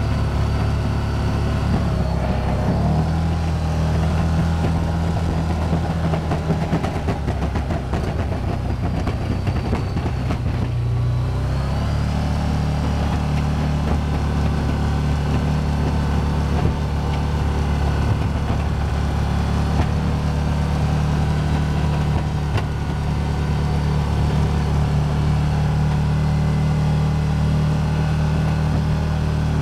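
Can-Am Commander 1000 XT's Rotax V-twin engine running under load while the side-by-side pushes snow with its plow. The engine note shifts about three seconds in, and again around eleven to twelve seconds as the speed eases and picks back up.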